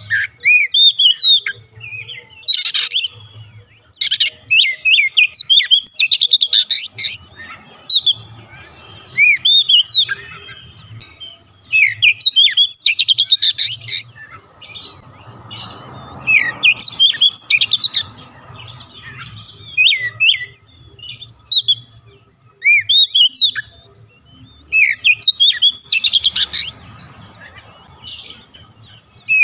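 Oriental magpie-robin singing: loud, varied phrases of quick whistled notes and fast rattling trills, delivered in bursts with brief pauses between them.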